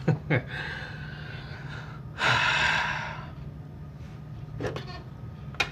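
A person breathing out hard: a long, loud breath about two seconds in, after a fainter one. A few sharp clicks come at the start and near the end.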